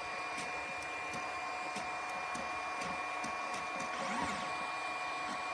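3D printer running, its stepper motors giving a steady whine with a rising-and-falling sweep in pitch about four seconds in, over the hum of its fans.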